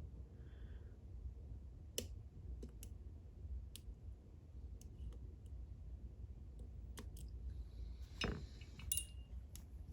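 Scattered small clicks as a lock pick works the pin stacks of a 10-pin, two-row Clavis lock, setting pins. A short, louder scrape comes near the end.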